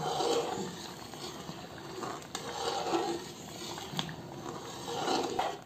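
Metal slotted spoon stirring and scraping thick semolina halwa in an aluminium kadai as it cooks down, with a couple of light ticks of the spoon against the pan.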